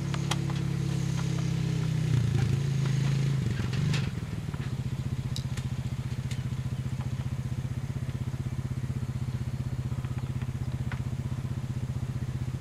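ATV engine running, louder for a couple of seconds early on, then settling into a steady, evenly pulsing idle.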